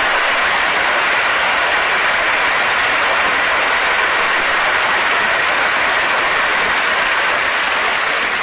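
Large convention crowd applauding, a dense, steady applause that dies down near the end.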